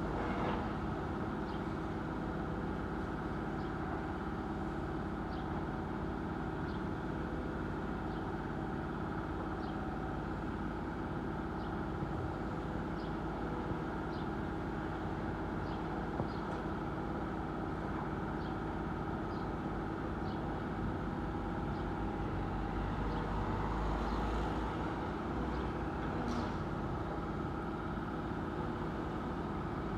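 Steady engine of heavy machinery running at a constant speed, with faint scattered clicks and knocks over it.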